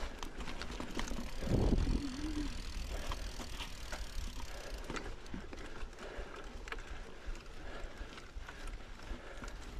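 Mountain bike being ridden off-road: tyres on dirt and the chain and frame rattling and clicking over bumps, with wind and a louder low rumble about a second and a half in.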